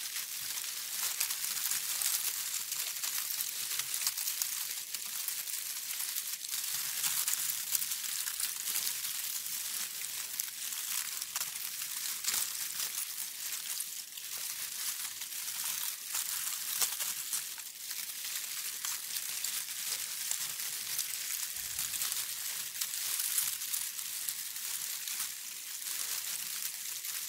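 Leaves rustling continuously: a dense, high-pitched rustle made of many small crackles, steady in level with no pauses.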